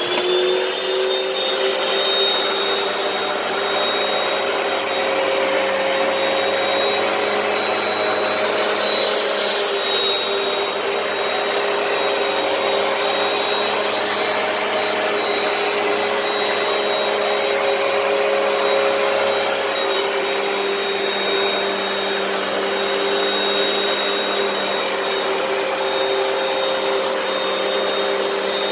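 Hoover PowerDash carpet cleaner running steadily, its suction motor giving a constant whine over a rushing air noise.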